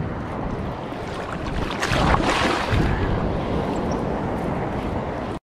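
Gulf surf washing ashore with wind buffeting the microphone; a wave surges louder about two seconds in. The sound cuts off suddenly just before the end.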